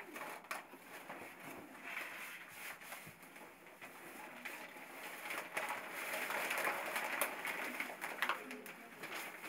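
Wolf pups making soft whimpering, cooing noises, with the rustle of a sheet under them; louder in the second half.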